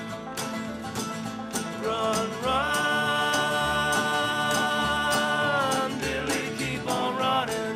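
Acoustic country-folk band playing live: steadily strummed acoustic guitar and banjo, with two men singing together. From about two and a half seconds in to about six seconds in they hold one long note in harmony, the loudest part.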